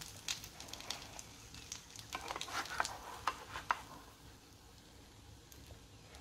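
Butter sizzling and crackling in a frying pan as folded crepes are lifted out with a spatula, with quick sharp pops that thin out after about four seconds, leaving a faint sizzle.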